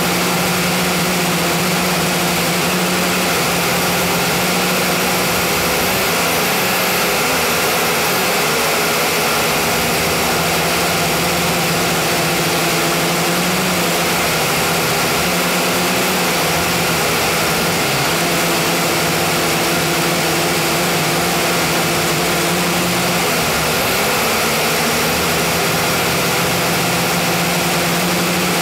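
JJRC H29G quadcopter's motors and propellers running steadily, a loud hum heard close up through the drone's own onboard camera microphone, its pitch wavering slightly now and then as it manoeuvres.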